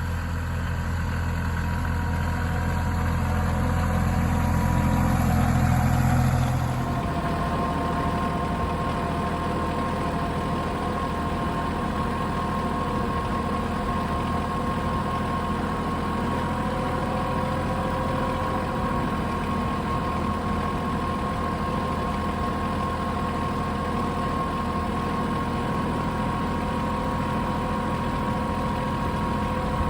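Tractor engine running steadily while pulling a corn planter up the field. About seven seconds in the sound changes abruptly, with a steady high whine heard over the engine after that.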